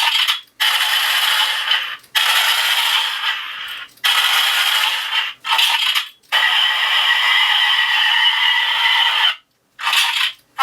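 Homemade Arduino E11 blaster prop playing its electronic weapon sound effects through its small built-in speaker: a string of about seven harsh, noisy bursts, each up to about three seconds long with short gaps between, and no bass.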